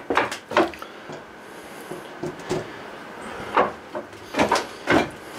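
Footsteps in flip-flops on loose wooden floor slats and plywood: a string of irregular wooden knocks and clacks, most of them in the second half.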